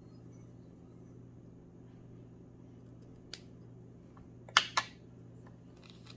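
Two sharp clicks about a fifth of a second apart, some four and a half seconds in, with a single fainter click a second earlier and a few light ticks near the end, from small fly-tying tools being handled at the vise. A faint steady hum sits underneath.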